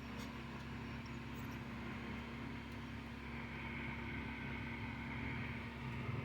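Steady low mechanical hum of a motor or engine running in the background, with a few faint clicks.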